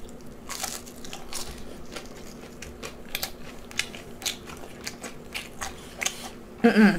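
Close-miked chewing of crunchy fried food: a string of short, irregular crunches and bites. Just before the end comes a brief, louder voiced sound.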